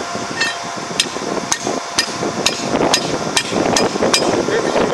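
A hammer striking a bent steel rotary tiller blade to straighten it: about nine blows, roughly two a second, each with a short metallic ring.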